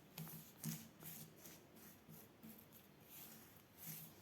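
Very quiet, faint soft strokes of paint being applied to a wall, recurring every second or so.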